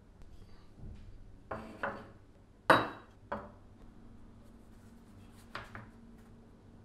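Handling knocks on a wooden workbench: a few short knocks, the loudest a sharp clink with a brief metallic ring, from the steel tomahawk head and its wooden handle being set down, then two light taps near the end as a leather sheath is handled.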